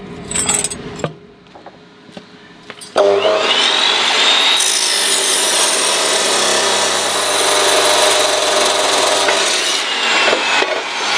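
Abrasive chop saw starting up about three seconds in with a rising whine, then its disc cutting through 12 mm steel plate in a loud, steady grinding screech. The disc winds down with a falling whine near the end.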